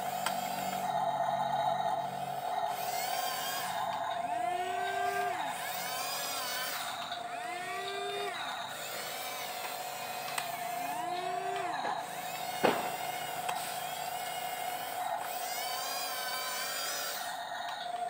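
Electric drive motors of a remote-control toy bulldozer whining, the pitch rising and falling again every two seconds or so as it drives back and forth, over a steady high whine. A single sharp click about two thirds of the way through.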